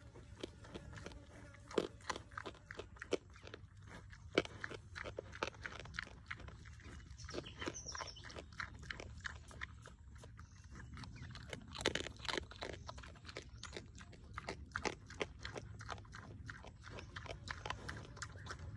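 Young wild pig chewing and crunching bait off the ground: an irregular run of quick crunches, several a second, with louder ones now and then.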